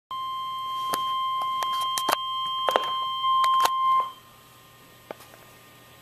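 Weather radio receiver sounding its warning alert: one steady high tone with several sharp clicks over it, cutting off about four seconds in. The tone signals an incoming Special Marine Warning broadcast.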